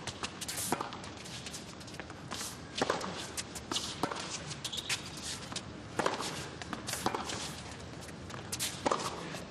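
Tennis rally on a hard court: sharp racket-on-ball strikes at irregular intervals of a second or two as the ball is hit back and forth, with footfalls on the court between the shots.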